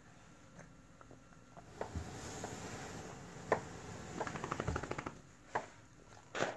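A small dog's claws clicking on the floor as it trots, a quick run of ticks about four seconds in, among a few sharp knocks.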